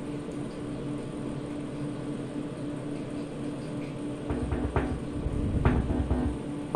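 Steady cooling-fan noise and a mains hum from a power amplifier. From about four seconds in, uneven low buzzing thumps with sharp clicks come from the speaker as a finger touches the tip of the loose audio input plug, the usual quick check that the signal path through the tone control to the amplifier is live.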